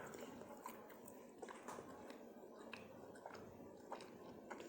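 Faint, irregular crunches of someone chewing crunchy popcorn chips (cheddar Popcorners) with her mouth close to the microphone.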